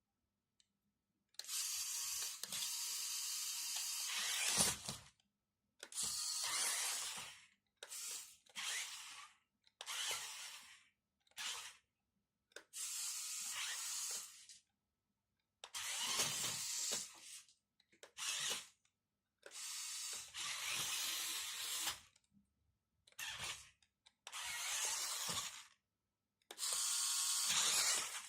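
Toy RC monster truck's small electric motor and plastic gearbox running in about a dozen separate bursts of half a second to three seconds each, stopping dead between them.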